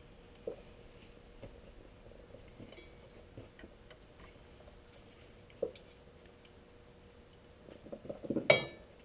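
Light knocks and clinks of small hard objects being handled and set down: a couple of single taps, then a quick cluster of clinks near the end, the last the loudest.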